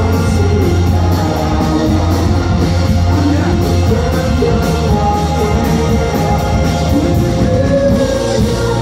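Rock band playing live: drums, bass and electric guitar with a singer over them, loud and steady, heard from within the crowd.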